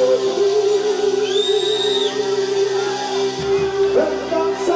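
Live kompa band playing held chords, with the male lead singer singing into the microphone.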